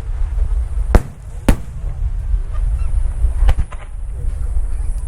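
Fireworks bursting: sharp bangs about a second in and half a second later, then a quick cluster of three near three and a half seconds, over a steady low rumble.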